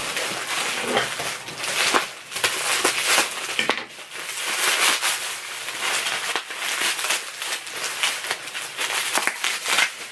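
Bubble wrap crinkling and crackling as hands pull it off a boxed vinyl figure, with irregular sharp clicks throughout.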